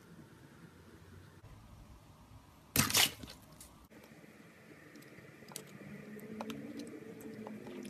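Glittery slime being squeezed and poked by hand in a plastic tub, making small sticky clicks and pops that grow louder near the end. A short, loud crackling burst comes about three seconds in.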